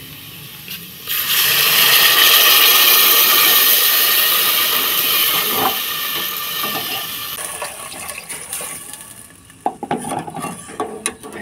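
Water poured into lentils frying in hot oil in a pressure cooker: a loud sizzling hiss sets off about a second in and slowly dies down over several seconds. A few light ladle clinks against the pot near the end.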